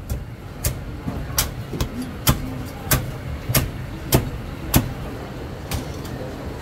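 A cleaver chopping through crispy-skinned roast pork onto a thick wooden chopping block: a steady run of about eight sharp chops, roughly one every 0.6 s, over a low steady background hum.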